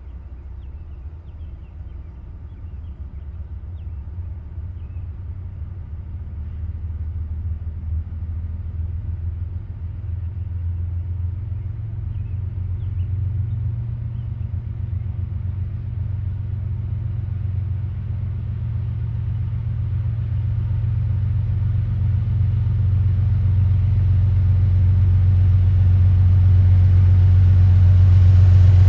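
Diesel locomotives of a long freight train approaching: a low engine rumble that grows steadily louder. A few faint chirps sound over the first several seconds.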